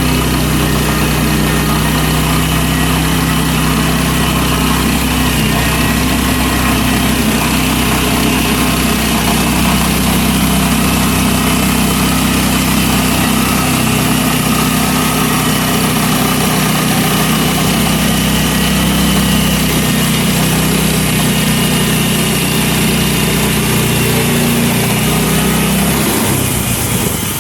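Gas-engine portable bandsaw sawmill running steadily while its blade cuts lengthwise through a red maple log. Near the end the engine note drops away.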